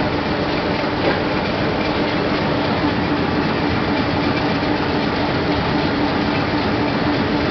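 Buenos Aires Subte Line E subway car moving along a station platform, heard from inside the car: a steady rumble of wheels and running gear with a steady hum.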